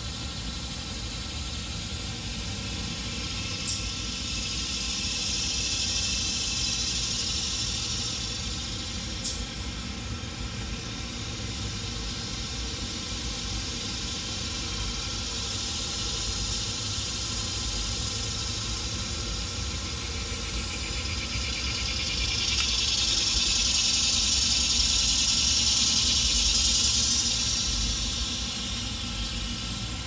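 Steady outdoor background noise: a low rumble with a hiss that swells twice for several seconds, and two sharp clicks about four and nine seconds in.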